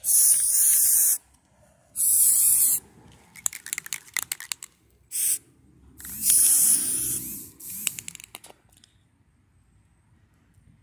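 Aerosol spray paint can spraying in short bursts: four hisses, the third very brief and the last the longest. Scattered short clicks come between the bursts.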